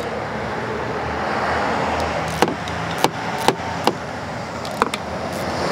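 A hand socket wrench working the small 8 mm bolts on a Stihl hedge trimmer's engine, making a few sharp, irregular clicks over a steady rumble of road traffic.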